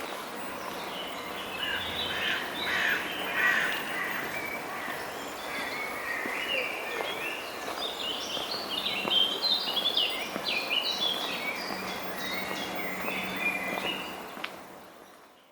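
Birds calling with many short, quick chirps over steady background noise, the calls busiest in the second half; the sound fades out near the end.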